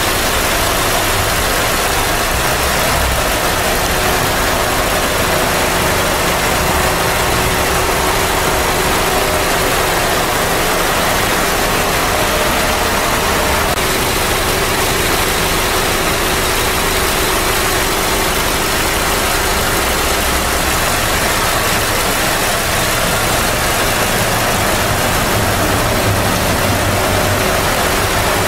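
Dacia Logan pickup's petrol four-cylinder engine idling steadily under an open bonnet, with a constant hiss over it.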